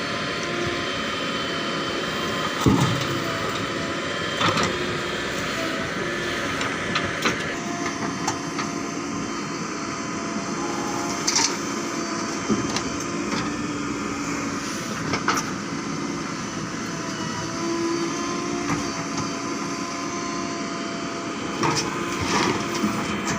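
JCB 3DX backhoe loader's diesel engine running steadily under load as it digs and loads mud, with a few sharp knocks scattered through.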